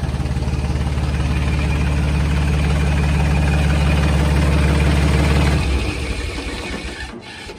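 Mahindra 265 DI tractor's three-cylinder diesel engine idling steadily, then cutting off abruptly about six seconds in and falling quiet as it is shut down.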